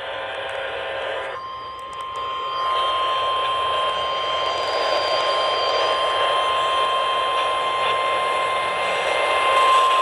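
NOAA Weather Radio receiver sounding the National Weather Service 1050 Hz warning alarm tone: after a brief buzzy burst, one steady high tone over radio static that stops just at the end. It signals that a warning broadcast, here a flash flood warning, is about to follow.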